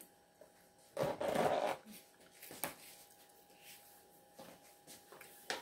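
A brief rustle about a second in, followed by a few light clicks and knocks, as containers and packaging on the table are handled.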